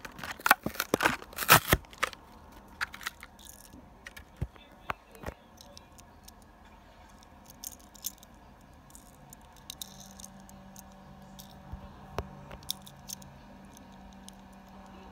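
Plastic blister and cardboard backing of a Hot Wheels toy-car pack being torn open, with a dense burst of crackling and tearing over the first two seconds. After that come scattered clicks and crinkles as the packaging and the small car are handled.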